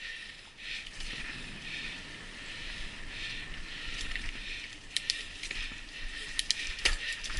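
Bicycle riding fast along a dirt singletrack strewn with dry leaves: steady tyre and trail hiss, with sharp rattles and clacks from the bike over bumps about five to seven seconds in.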